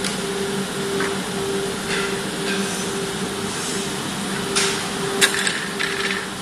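Woodworking finger joint line running: a steady machine hum with a pulsing tone, and several sharp knocks and clacks, the loudest about five seconds in.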